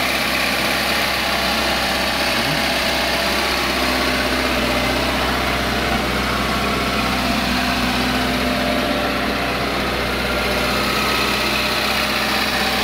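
Lada Niva's four-cylinder carburetted engine idling steadily.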